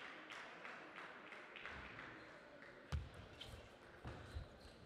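Table tennis ball being served and played in a rally: one sharp click about three seconds in, with low thumps of the players' feet on the court floor around it.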